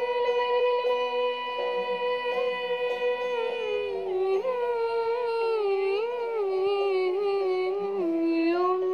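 Soundtrack music: a single melody line holds one long note for about four seconds, then moves slowly up and down.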